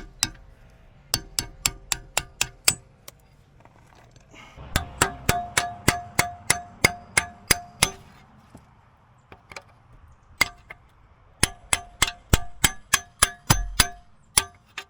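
Hammer striking a steel backhoe bucket pin, clanging in three runs of quick blows, about three a second, with short pauses between. The pin is being driven out to free the bucket.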